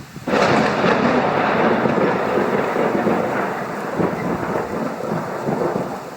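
Thunderclap: a sudden loud crack about a third of a second in that rolls on as a long rumble, slowly fading, with rain falling.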